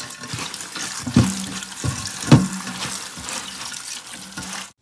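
Kitchen tap running into a steel bowl of gongura (roselle) leaves while hands swish and rinse the leaves, with a couple of dull knocks about one and two seconds in. The sound cuts off suddenly near the end.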